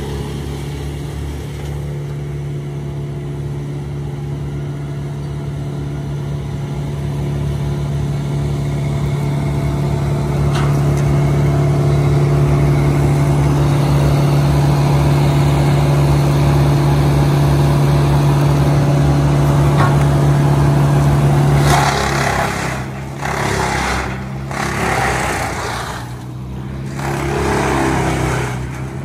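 Large wood chipper's engine running steadily, growing louder about a quarter of the way in. Near the end the steady drone breaks up into uneven surges and dips.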